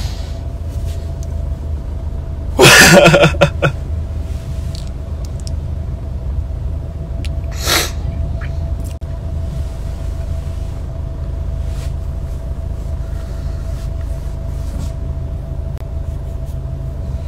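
Steady low rumble of a car's cabin from a passenger seat, with a faint steady hum. About three seconds in, a man makes a loud brief vocal sound, and near eight seconds there is a shorter one.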